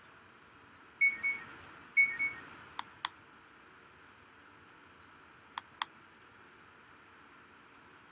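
Two short high chirps about a second apart, then two quick double-clicks of a computer mouse opening a folder.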